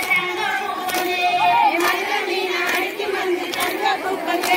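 Group of women singing a Tamil kummi folk song together and clapping in unison about once a second, in time with the dance.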